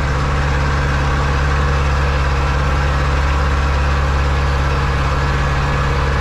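Zetor 7245 tractor's four-cylinder diesel engine running at a steady speed while towing a trailer, heard from inside the cab.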